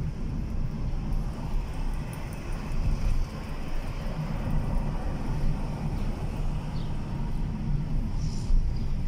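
A car's engine and tyres make a steady low rumble inside the cabin while driving along a city street.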